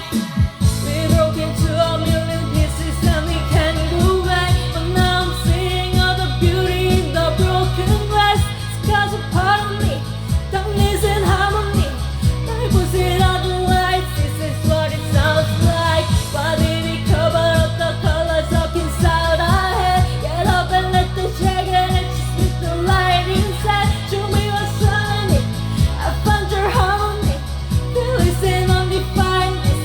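Pop song: a sung vocal line over a steady bass line and beat.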